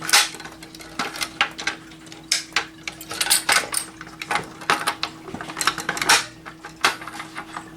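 Irregular metallic clicks and clinks from a BG-12L fire alarm pull station being reset: the reset key working the lock and the handle being pushed back into place.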